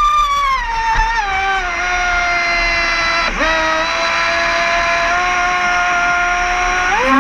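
R/C speedboat's motor whining at high pitch. The pitch falls in steps as the throttle is eased, dips sharply and recovers about three seconds in, then climbs quickly again near the end as the throttle is opened.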